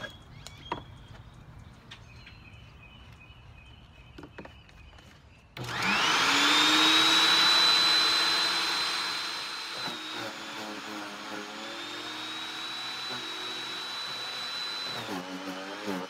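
Harbor Freight electric chipper shredder: a few light clicks, then about five and a half seconds in the motor switches on and spins up fast to a steady high whine. From about ten seconds in it gets quieter and its pitch dips and wavers.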